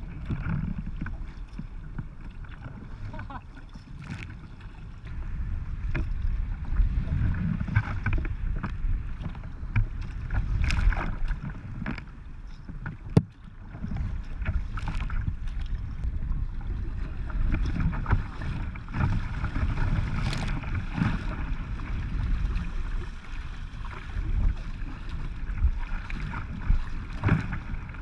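Sea kayak moving through choppy, wind-driven waves: water rushing and splashing along the hull, with wind rumbling on the microphone and scattered splashes and drips hitting close by. One sharp click about thirteen seconds in.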